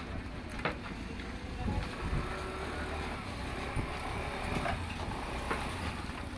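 Steady low engine rumble, with scattered light knocks and clicks.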